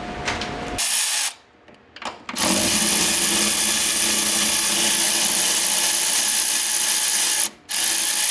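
Handheld power tool, drill-type, spinning a suspension bolt or nut. It gives a short burst about a second in, then runs steadily for about five seconds, then gives a brief burst near the end.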